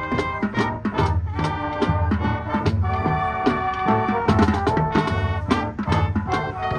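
Marching band playing: brass holding chords over drumline strokes and repeated low bass-drum pulses.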